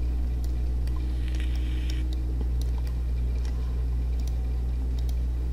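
Steady low electrical hum from the recording setup, with a few faint scattered clicks, most likely from the mouse.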